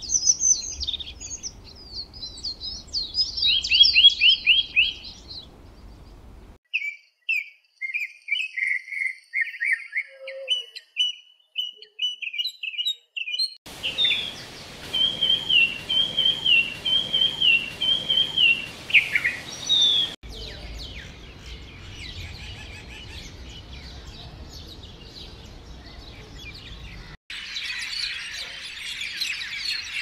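Bird song in several separate recordings, each cut off abruptly after a few seconds. First come fast high chirping trills, then a run of short whistled notes, then a whistled phrase repeated several times that ends in a falling glide. After that there are fainter scattered chirps, and near the end a dense chorus of many birds.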